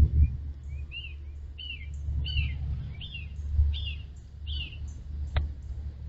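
A northern cardinal singing a series of about seven clear, slurred whistles, one note roughly every half second. A single sharp tap near the end comes from the red-bellied woodpecker pecking at the feeder dish. A steady low rumble runs underneath.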